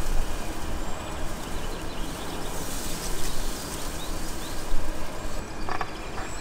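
Outdoor ambience: a steady rushing noise with faint, brief bird chirps now and then, and a couple of light clicks near the end.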